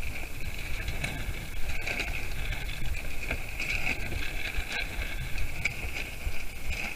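Wind buffeting the microphone with a steady low rumble, over water sloshing around a small wooden sailing dinghy's hull, with a few light clicks and knocks from the boat.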